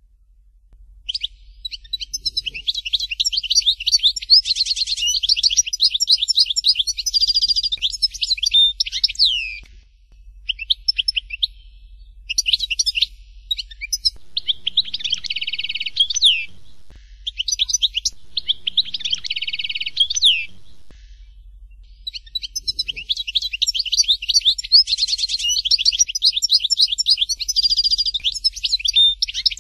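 European goldfinch singing: long runs of fast, tinkling twitters and trills, broken by short pauses. The song starts about a second in, comes in shorter phrases through the middle, and runs on unbroken near the end.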